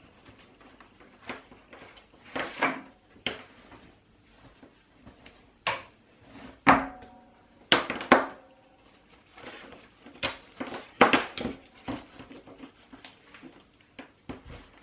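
A cloth wiping down an Amiga tank mouse's cable with Windex: irregular strokes of rubbing and handling noise, a few with a brief squeak.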